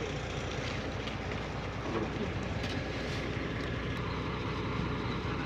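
Diesel engine of a heavy earthmoving machine, a loader or bulldozer, running steadily with a low rumble.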